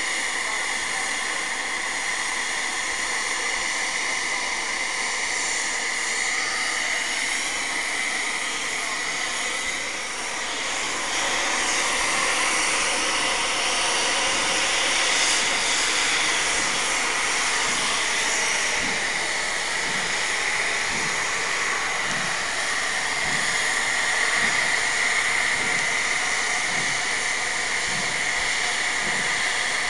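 Steam locomotive Nickel Plate Road 765, a 2-8-4 Berkshire, blowing off its built-up excess steam in a loud steady hiss as it stands to cool down. The hiss grows louder about ten seconds in, and a faint low beat about once a second runs under it in the second half.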